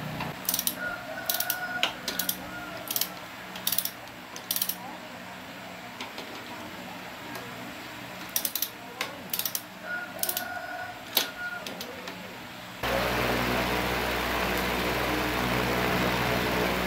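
Scattered mechanical clicks and small knocks of work on the motorcycle. About thirteen seconds in, the restored motorcycle's engine starts abruptly and runs steadily, louder than the clicking.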